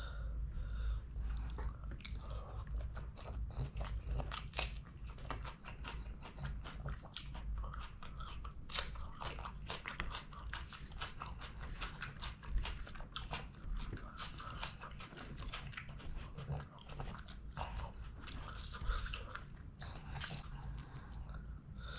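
Close-miked eating by hand: chewing and wet mouth sounds, with fingers squishing rice and curry together and tearing at a whole curried chicken. Many small sticky clicks and crackles follow one another without pause.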